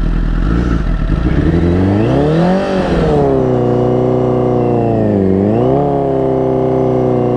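Honda CBR1000RR inline-four engine revved while the sportbike is stuck in snow. The revs climb about two seconds in, ease back and hold, dip and rise again around five seconds, then drop away near the end. The bike does not get going.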